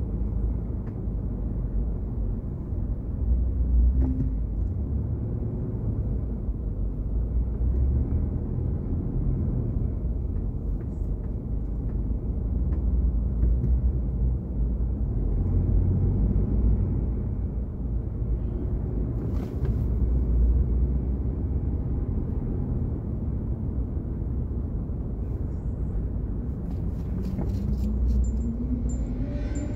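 Steady low rumble of a car driving along a city street, with a rising engine note near the end.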